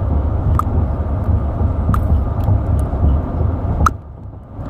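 A steady low rumble with three light, sharp clicks of hard plastic parts as fidget spinner bearings and centre caps are pried and pressed. The rumble drops away near the end.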